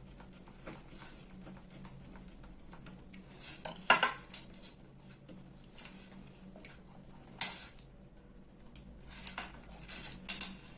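Scattered light clicks and metallic taps from small metal parts and a tool being handled while reassembling a hair clipper, the sharpest click about seven seconds in and a quick cluster near the end.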